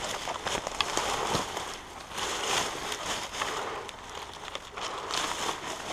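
Footsteps moving quickly through dry leaf litter and undergrowth, with irregular rustling and scattered sharp crackles and snaps.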